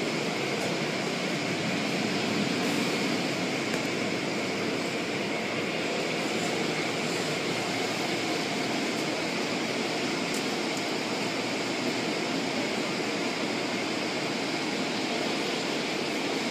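Steady rushing hiss of car wash machinery, water spray and blowers running without a break, with a few faint ticks.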